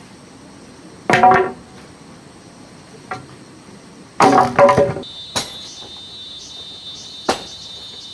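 Irregular knocks and blows, like work on wood, about five or six of them with the loudest cluster just past the middle; from about five seconds in a steady high-pitched buzz joins.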